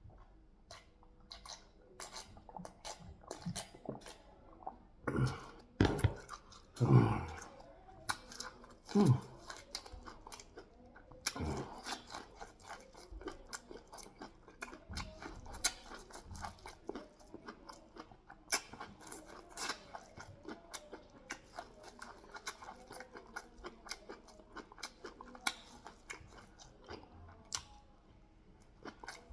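Close-miked eating of sweet corn and pear: steady wet chewing with crunchy, crackling bites, and a few louder thuds about five to seven seconds in.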